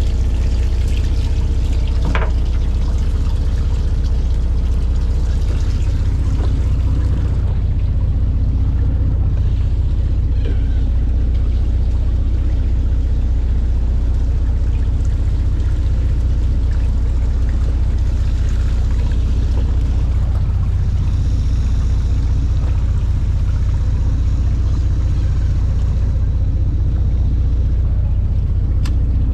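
A fishing boat's engine running steadily with a low rumble, with water pouring and splashing over it. There is a single short knock about two seconds in.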